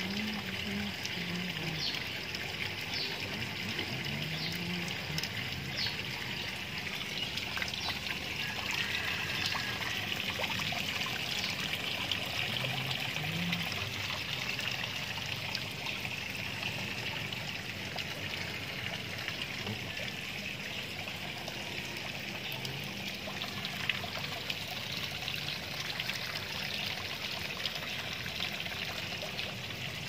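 Steady trickle and splash of flowing water into a garden koi pond.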